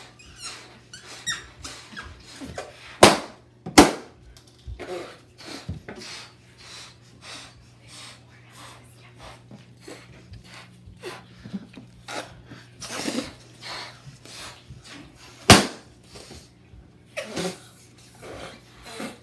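Latex balloons being blown up by mouth, with repeated puffs of breath and rubber squeaking, and three loud sharp balloon pops: two about three and four seconds in, a third about fifteen seconds in.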